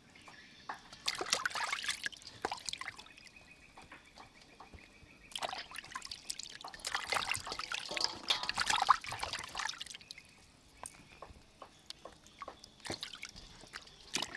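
Water splashing and sloshing in a stainless steel bowl as hands rub and wash small octopuses. There are two spells of splashing, a short one about a second in and a longer, louder one from about five to ten seconds in, with small drips and splashes between.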